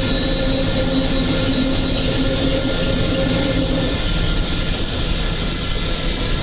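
Bus running, heard from inside the cabin: a steady rumble of engine and road noise. A low steady hum within it stops about four seconds in.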